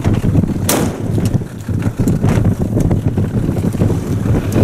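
Motorboat running at sea, with wind buffeting the microphone as a steady low rumble. A brief sharp noise cuts through less than a second in.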